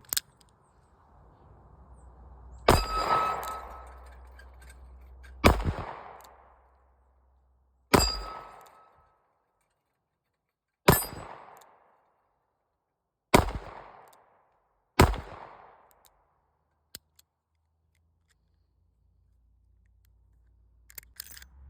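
Six single shots from a Colt Detective Special .38 Special snub-nose revolver, fired slowly about two to three seconds apart, each followed by a short echo that dies away within about a second. A few faint clicks come near the end.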